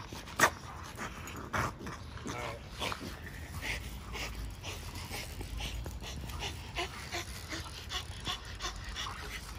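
French bulldog panting in short, quick breaths, about two a second, close to the microphone. A single sharp click comes about half a second in.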